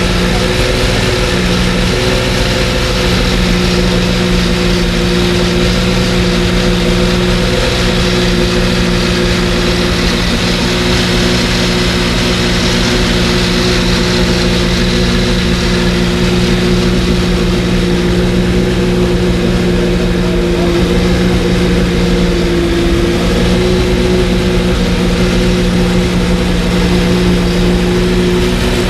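Porsche 917's air-cooled flat-12 racing engine running steadily at an even speed.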